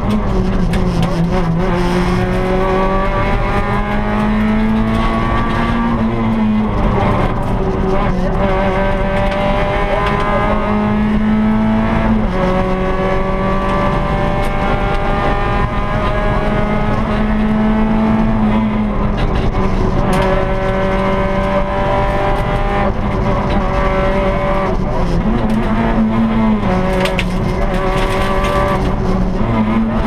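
Rally car engine heard from inside the cockpit, pulling hard through the gears: its pitch climbs for several seconds, drops back at each gear change, then climbs again, several times over.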